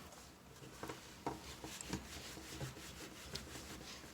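Faint rubbing and a few light, scattered clicks of small parts of a compressor pressure switch being handled and fitted together by hand.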